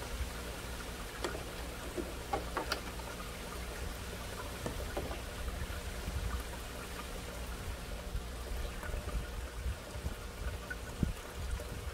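Water trickling steadily in an aquaponics fish tank over the steady low hum of its filter pump, with a few light clicks one to three seconds in.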